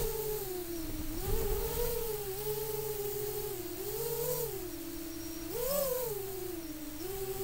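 FPV tricopter's electric motors whining, the pitch rising and falling with the throttle; it climbs briefly about a second in, again around four seconds, and most sharply a little before six seconds.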